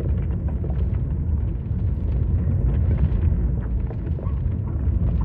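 Fire burning after an explosion: a steady low roar with faint scattered crackling.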